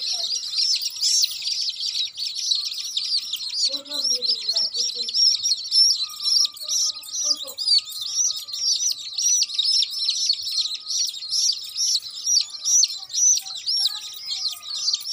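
A group of baby chicks peeping without pause: many short, high-pitched cheeps overlapping one another.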